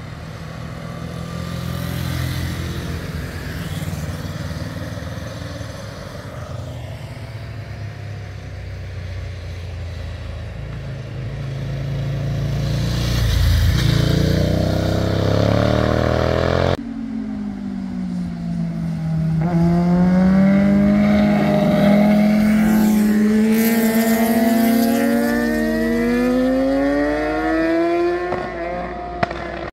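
Several motorcycles ride past, their engines swelling and fading, loudest about 13 to 14 seconds in. The sound breaks off suddenly a little past halfway, and another motorcycle engine then climbs steadily in pitch for about ten seconds as it accelerates.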